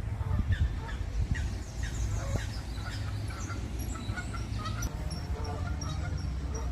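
Geese calling, with small songbirds chirping, over a steady low rumble.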